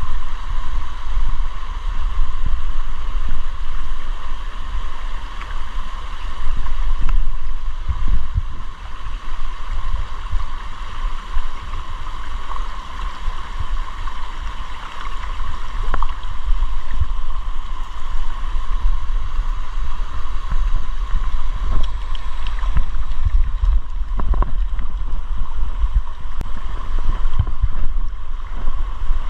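Stream water rushing steadily, with an irregular low rumble underneath.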